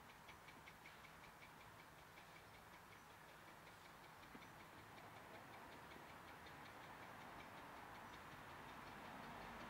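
Faint, distant sound of Bure Valley Railway No.6 Blickling Hall, a 15-inch gauge steam locomotive, growing slowly louder as it approaches. A faint quick ticking, about five ticks a second, runs through the first half.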